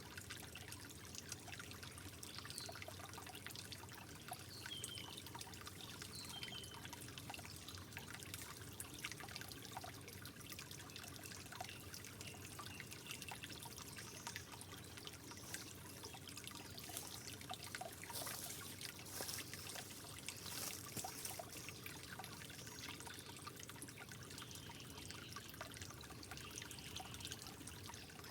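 Soft trickling water, with many small drips and splashes.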